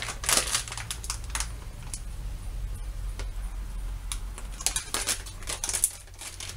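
A small spice sachet crinkling and rustling in the hand as ground cinnamon is shaken out of it into a stainless steel mixing bowl, in a few short spells, over a low steady hum.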